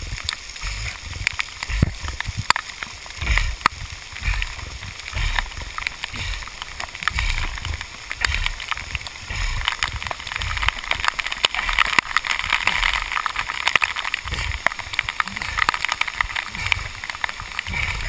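Waterfall water pouring and splashing right onto a body-mounted camera, a steady rushing hiss with many sharp ticks and irregular low thumps.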